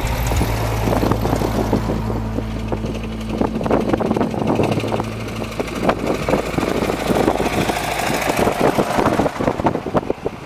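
Engines of vintage tractors running as they drive past one after another. There is a steady low drone for roughly the first half, then rapid, uneven exhaust beats as tractors pass close by.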